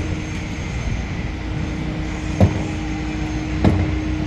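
Construction-site machinery noise: a steady low rumble with a droning hum, and sharp knocks about a second and a quarter apart.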